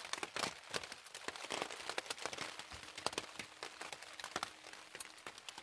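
Irregular light ticks and taps of rain dripping onto a plastic tarp shelter, mixed with small sticks being handled by a wood-burning camp stove.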